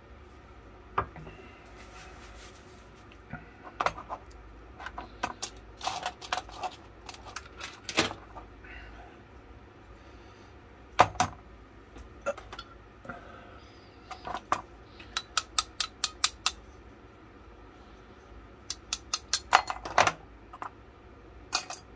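Sharp metallic clicks and clinks of small steel gun parts and tools being handled while the pistol's lock and trigger mechanism is taken apart, in scattered groups with a quick run of clicks at about five a second two-thirds of the way through.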